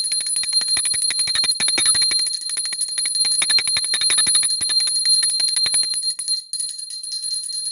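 Small brass puja hand bell rung rapidly and continuously, a fast run of clanging strikes over a steady high ring, easing off near the end. It is rung during a Hindu puja offering.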